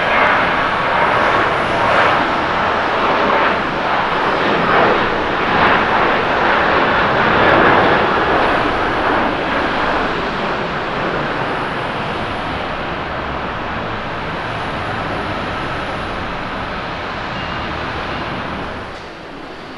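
Boeing 737-800's twin CFM56 turbofan engines at takeoff thrust: a loud, steady jet noise through the takeoff roll and liftoff. It fades slowly as the airliner climbs away, then drops off sharply just before the end.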